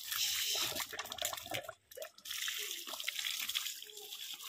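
Water running from an outdoor tap and splashing over a foot and sandal onto a concrete drain floor, a steady splashing hiss that drops out for a moment about two seconds in.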